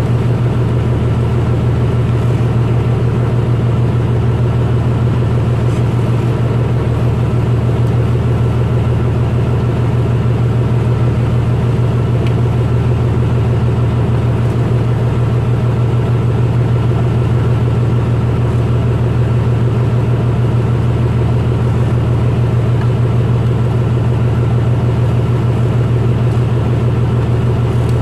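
Fishing boat's engine running steadily underway, a constant low drone with a deep hum and no change in speed.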